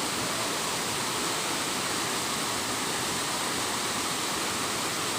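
Waterfall pouring and splashing, a steady rushing noise.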